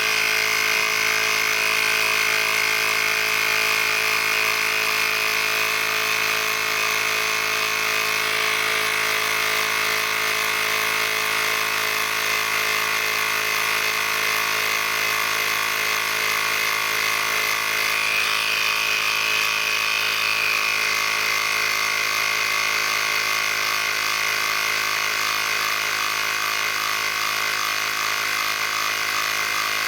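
Plug-in electric air pump running steadily, inflating a bicycle tyre's inner tube: a constant motor hum and buzz with hiss, unchanging throughout.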